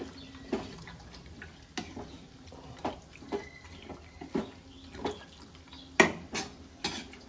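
Irregular knocks and clinks of a utensil against a cooking pot, with wet sounds, as beef pieces go into masala and water; the loudest knock comes about six seconds in.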